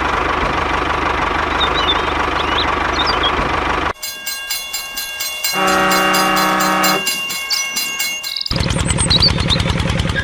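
Train sounds: a steady, loud rumble of a train running for about four seconds, which cuts off into a clatter of evenly spaced clicks. A horn sounds for about a second and a half near the middle, and a fast, regular pulsing running sound follows near the end.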